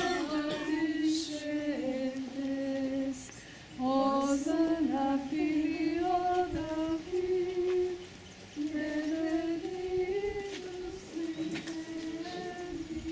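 Benedictine nuns' women's voices singing a slow chant in unison, one melody line in long phrases with brief pauses for breath between them.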